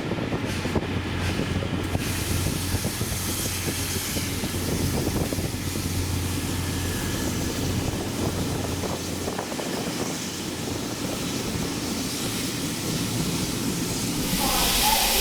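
Steam-hauled train in motion, a steady rumble and hiss, growing louder and hissier near the end.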